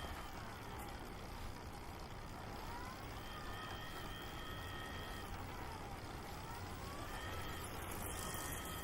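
Distant wailing siren whose pitch slowly rises and falls, about one cycle every three seconds, over steady street noise with a faint, steady high-pitched tone.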